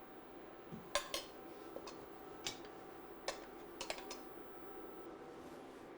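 A serving utensil clinking and tapping against a plate as couscous is spooned into a pile: about half a dozen light, sharp clinks in the first four seconds, the loudest about a second in, then only a faint steady background.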